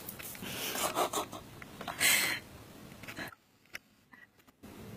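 Cat scuffling with a toad on a bristle doormat: scratchy rubbing and rustling in short bursts, the loudest about two seconds in, then a near-silent gap.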